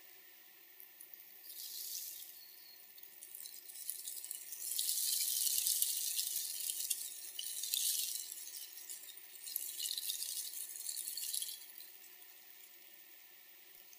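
Dry flower petals rustling and skittering over stone paving in gusts of wind, in three surges: a short one about two seconds in, a long one from about four to eight seconds, and another around ten to eleven seconds.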